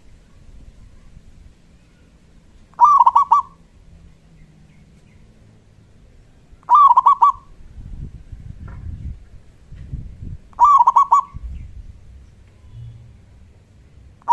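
Local zebra dove (perkutut) cooing: three short calls, each a quick run of a few rolling notes, about four seconds apart.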